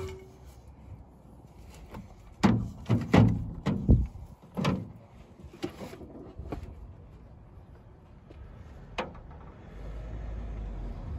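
Metal clunks and knocks as the rocker cover is lifted off a Land Rover 2.25 petrol engine and handled, with a cluster of sharp knocks a few seconds in and a single click later. A low rumble comes in near the end.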